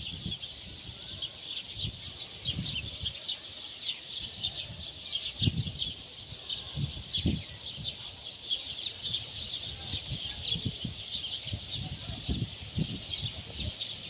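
A chorus of many small birds chirping, short high chirps overlapping thickly and continuously. Irregular low rumbles come and go underneath.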